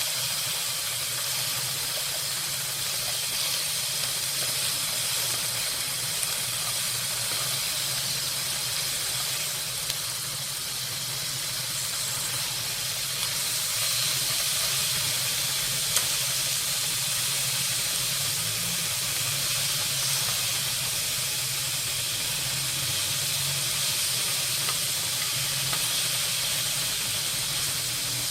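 Duck and beef slices frying in oil on a hot pan, a steady sizzle with a couple of faint sharp ticks.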